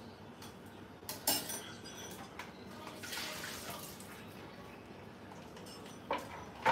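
Kitchen sink tap running for about a second as food is rinsed, with clatters of dishes and utensils: a burst of clinks about a second in and sharp knocks near the end.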